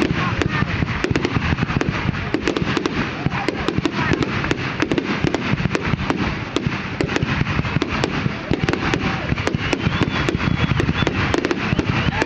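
Aerial fireworks shells bursting in a dense, continuous barrage, many sharp bangs and crackles a second with no pause.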